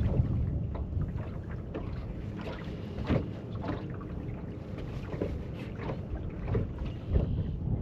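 Wind buffeting the microphone as a steady low rumble, with irregular light knocks and taps scattered through it.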